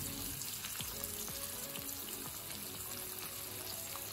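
Masala-coated sardines shallow-frying in hot coconut oil in a pan: a steady sizzle with scattered small crackles.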